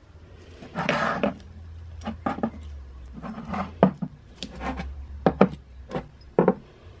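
Glass perfume bottles being picked up, slid and set down on a dresser top: a string of irregular sharp knocks and clinks, about a dozen, with some rubbing and scraping between them.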